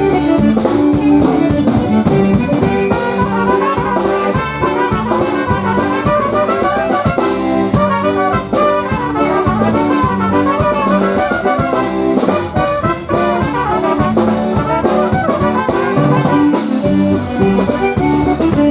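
Live polka band playing an instrumental passage led by brass, over a steady dance beat.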